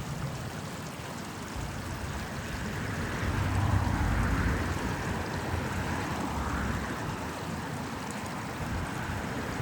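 Small stream running steadily, with road traffic rumbling in the background; the traffic swells louder about three seconds in and eases off after.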